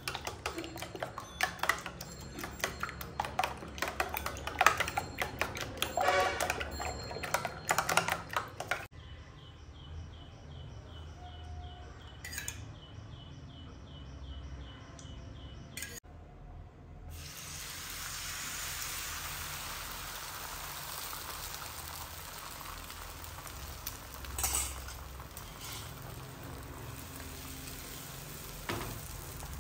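Eggs being beaten in a bowl, with quick clicks of a spoon or fork against its side. Then an omelette frying in a hot pan, a steady sizzle over the second half.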